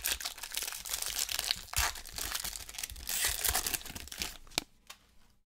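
Foil wrapper of a 2021 Topps Series 1 baseball card pack being torn open and peeled back, a dense crinkling crackle with a sharp click near the end.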